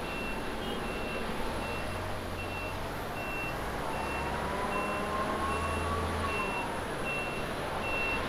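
Jet engines of an Airbus A350-900 running steadily as the airliner rolls along the runway. Over the engine noise a vehicle's reversing beeper sounds short high beeps, about three every two seconds.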